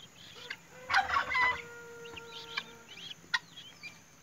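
Newly hatched guinea fowl keets peeping in short, high chirps, with a louder call from a grown fowl about a second in that holds one pitch for about a second.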